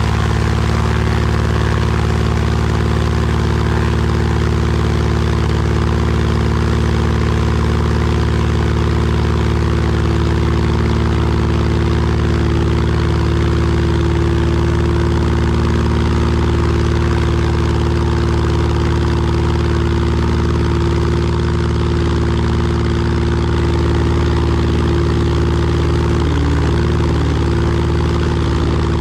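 Cessna 210's piston engine and propeller running at a steady, unchanging pitch while the plane rolls along a dirt strip.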